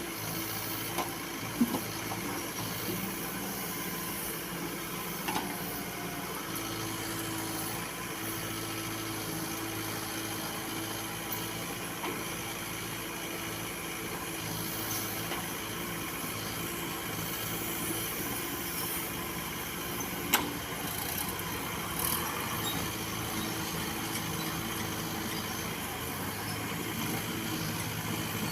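Case 851 EX backhoe loader's diesel engine running steadily, with a few sharp knocks, the loudest about twenty seconds in.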